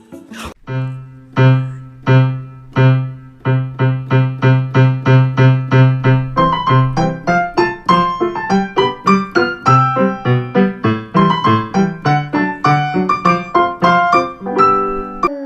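Piano playing a quick tune in a steady beat: a repeated low note at first, with a higher melody joining about halfway through. It cuts off suddenly near the end.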